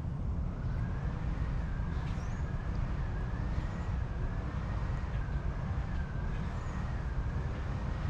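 Outdoor ambience: a steady low rumble, with a faint high tone that wavers up and down every second or so and a few faint chirps.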